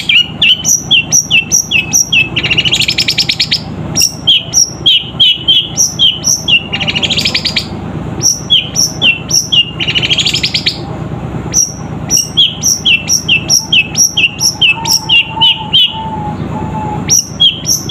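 Caged long-tailed shrike (cendet) singing a run of sharp, high chirps, about three a second, broken three times by a harsh chattering rattle. It is mimicking the calls of fighting Eurasian tree sparrows (burung gereja).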